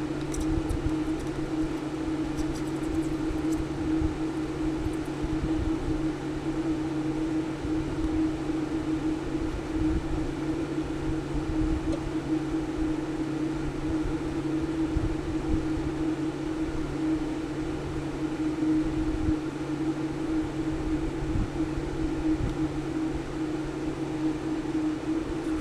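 Steady hum of an electric fan or motor: a constant low drone with a humming tone. A few faint light ticks in the first few seconds.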